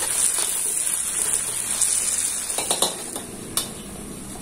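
Chili, shallot and garlic paste sizzling in oil in a hot wok, a metal spatula scraping and knocking against the pan as it stirs; this is the spice paste being sautéed until fragrant. The stirring eases about three seconds in, leaving a quieter sizzle with one more sharp knock.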